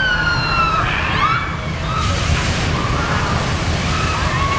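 Riders screaming as a log-flume boat plunges down the drop, then a loud rushing splash of water about two seconds in as it hits the pool.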